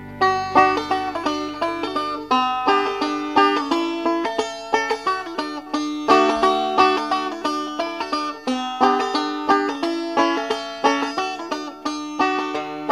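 Background music: a fast plucked-string instrumental, notes picked in quick succession, starting abruptly at the beginning.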